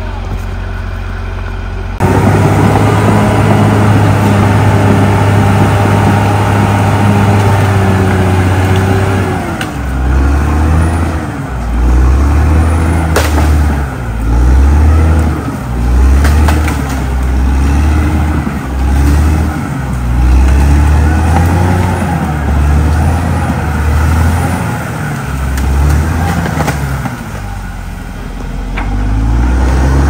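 CAT D6R XL crawler bulldozer's diesel engine running close by: steady for the first several seconds, then from about ten seconds in rising and falling over and over as the machine works under changing load, pushing into brush and earth. A single sharp crack a few seconds later.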